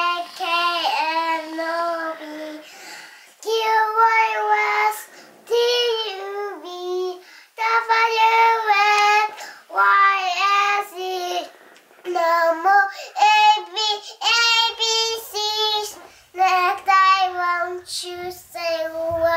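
A child's voice singing a melody unaccompanied, in short phrases with brief pauses between them.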